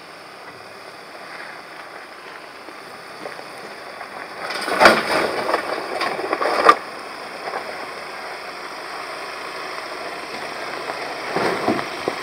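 Volkswagen Amarok pickup crawling slowly over a sandy, rocky off-road trail, its engine running low under a steady rumble of tyre and trail noise. Loud crunching, clattering bursts from the tyres on dirt and stones come about five seconds in and again near the end.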